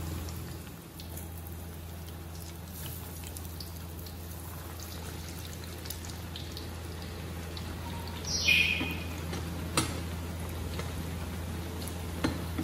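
Besan-coated naan deep-frying in hot oil in a steel wok: a steady sizzle with small crackles. A wire spider skimmer clicks against the pan twice near the end, and a short high squeal sounds about eight and a half seconds in.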